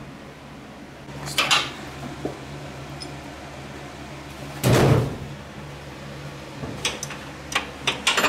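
Metal clanks and clicks of tools and suspension parts being handled in a shop, with a louder, rougher burst about halfway through and a quick run of sharp clicks near the end, over a steady low hum.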